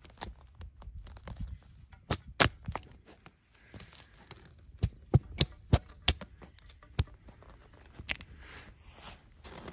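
Paper towels frozen stiff in −27 °C cold, flexed and tapped by hand: a series of sharp clicks and crackles, with a quick run of about five near the middle and softer rustling between.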